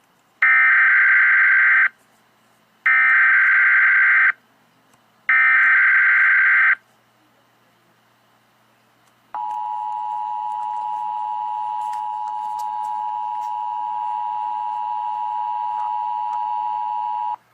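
Emergency Alert System header: three bursts of SAME digital data tones, each about a second and a half long. Then the EAS attention signal, a steady two-tone sound (853 and 960 Hz), is held for about eight seconds, announcing an alert that here is a tornado warning.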